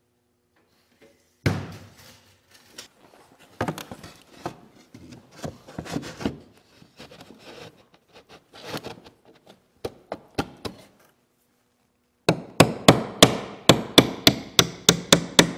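Half-inch plywood divider knocked and shifted about as it is fitted into a wooden frame, with scattered irregular knocks; then, near the end, a hammer driving a nail in quick, even taps, about three or four a second.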